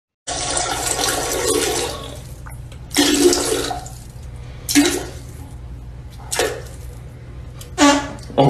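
Toilet flushing: a loud rush of water for about two seconds, then a quieter steady run of water as it refills. Four short vocal sounds come about one and a half seconds apart over it.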